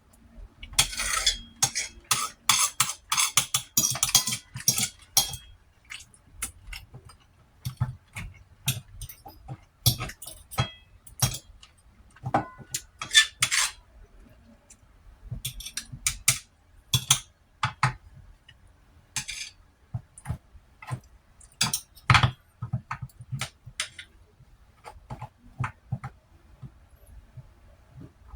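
Eating utensils clinking and scraping on a plate of rice and beef ribs: a dense run of clicks over the first few seconds, then scattered taps, with sharper knocks about halfway through and again a little later.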